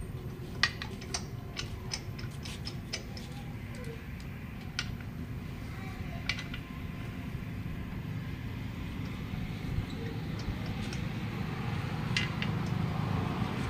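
Light, irregular metallic clicks of wheel nuts being fitted by hand onto the hub studs of a tractor's front wheel. The sharpest click comes about a second in, with more clicks in short clusters later, over a steady low hum.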